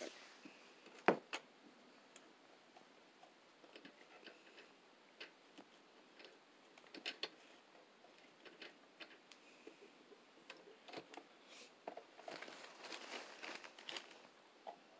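Faint, scattered clicks and taps of ribbon being handled and lined up under a sewing machine's presser foot. A sharp click about a second in is the loudest.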